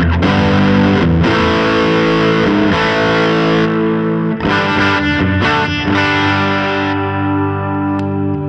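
Gretsch G5421 Jet Club electric guitar played with a distorted tone through an HX Stomp effects modeler: sustained, ringing chords that change every second or so.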